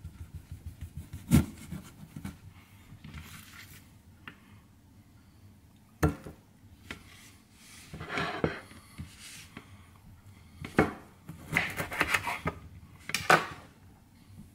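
A kitchen knife cutting through a lime on a cutting board: a quick run of small taps at the start, sharp knocks as the blade meets the board (the loudest about a second and a half in, others later), and rasping sawing strokes through the rind in between.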